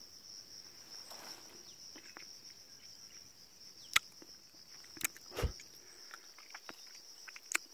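Steady high-pitched drone of insects, with a few sharp clicks, the loudest about four seconds in, and a dull thump about five and a half seconds in.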